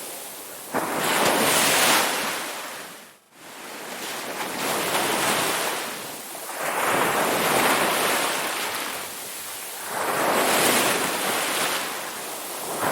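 Ocean waves breaking and washing ashore in repeated surges that swell and fade every few seconds. The sound drops out abruptly for a moment about three seconds in.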